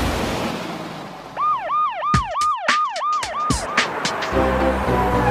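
Cartoon siren sound effect: a quick yelping wail of about eight rises and falls, roughly three a second. Near the end, music with a steady beat comes in.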